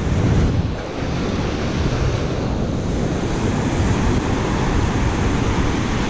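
Ocean surf washing up the beach, with wind buffeting the microphone; a steady, even noise throughout.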